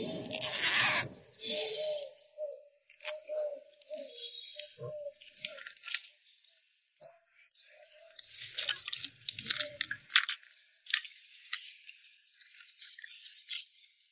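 Electrical insulating tape being pulled off the roll and wrapped around twisted wire joints, along with the crackle of plastic-insulated wires and PVC conduit being handled. A loud ripping burst lasts about the first second, followed by scattered scratchy crackles that thin out near the end.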